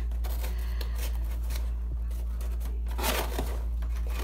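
Scissors cutting into a cardboard box: scattered small snips and scrapes, with a denser crunching cut about three seconds in, over a steady low hum.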